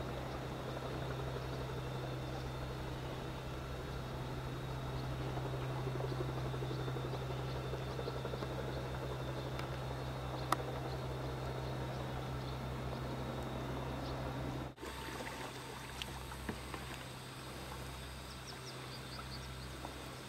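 A steady low hum with no words over it. It cuts out briefly about fifteen seconds in and comes back fainter.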